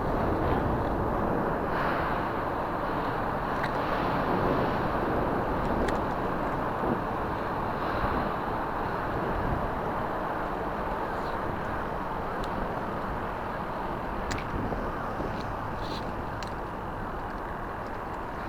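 Steady rushing outdoor background noise, with a few faint clicks scattered through it.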